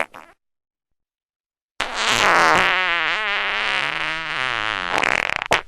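A long fart sound starting about two seconds in. Its pitch wobbles up and down for about three and a half seconds, and a short blast follows near the end. The tail of an earlier one cuts off at the very start.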